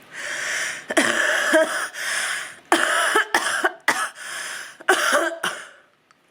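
A sick woman coughing, about seven coughs in quick succession, her throat inflamed.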